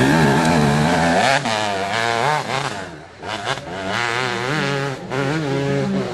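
Dirt bike engine revving hard under load up a steep muddy climb, its pitch rising and falling repeatedly as the throttle is worked. It eases off briefly about three seconds in, then picks up again.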